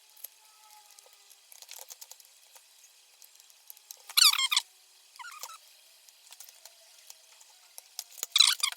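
Soldering iron at the solder joints of a circuit board: flux sizzling in short squeaky bursts as push buttons are desoldered, with the strongest about four seconds in and again near the end.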